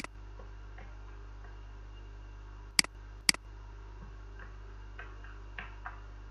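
Computer mouse clicking: one sharp click at the start, then two more about half a second apart near three seconds in, with a few faint ticks after. A steady low electrical hum runs underneath.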